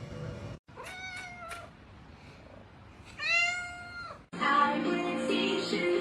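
Cat meowing: a few short meows about a second in, then one long, louder meow about three seconds in. Music starts suddenly a little after four seconds.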